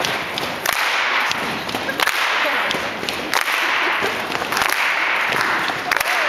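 Audience cheering and yelling in swells, with scattered sharp claps.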